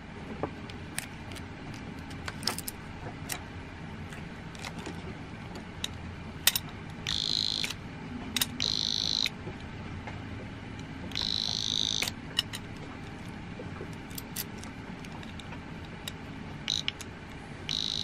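Banshee alarm padlock's electronic buzzer giving several short high-pitched beeps at uneven gaps, over sharp metallic clicks of the key and lock body being handled.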